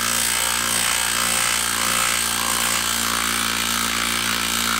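Makita 18V brushless impact driver hammering steadily under load as it drives a 4.5-inch lag screw into a wooden log.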